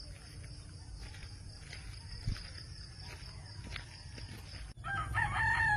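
Steady high-pitched chirring of insects, with the low rustle of footsteps on a path. Near the end a rooster starts crowing.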